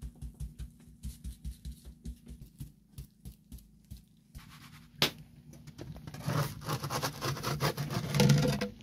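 Dough being pricked with a hand tool, soft taps on the wooden peel at about four a second. After a sharp click about five seconds in, a wooden peel scrapes over a wood-fired oven's hearth as the flatbread is slid in, getting louder near the end.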